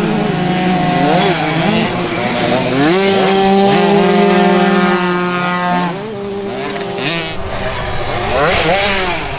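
Small two-stroke youth motocross bikes racing: engines revving hard, the pitch climbing and dropping with throttle blips and gear changes, held high at full throttle for a few seconds in the middle.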